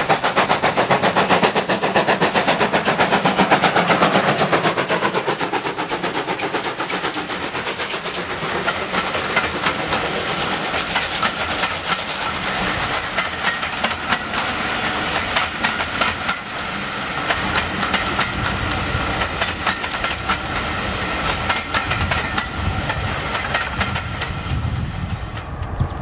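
Steam locomotive working hard as it hauls a train past, its exhaust beats loudest in the first few seconds, then a long rake of coaches rolling by with wheels clacking over the rail joints.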